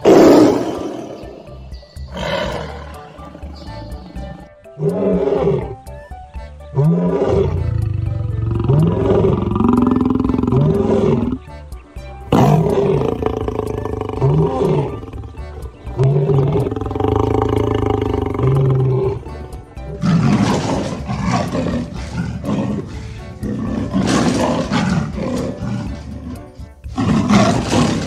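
Animal roars, several loud calls repeated at intervals, over background music that carries the middle stretch.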